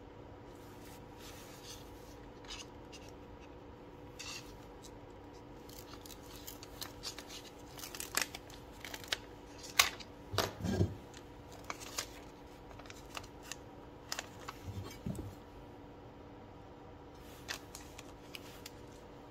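Hands peeling and handling a white prefilter sheet on a mesh air-intake frame: scattered rustling, scraping and small clicks, with a dull knock about ten seconds in and another about fifteen seconds in. A faint steady hum underneath.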